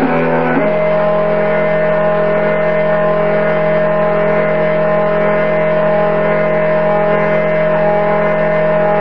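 Background music with guitar and steady held chords, with a chord change about half a second in.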